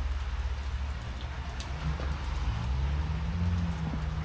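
Outdoor ambience of light rain, with faint scattered ticks of drops over a steady low rumble. A faint low hum comes in about two and a half seconds in.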